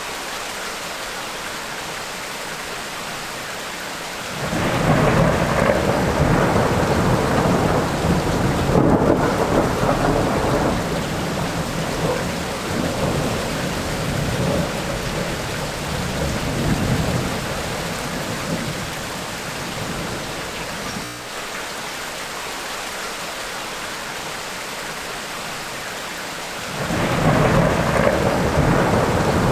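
Steady tropical rain with thunder rolling in twice. The first long roll begins about four seconds in and slowly dies away some fifteen seconds later; another starts near the end.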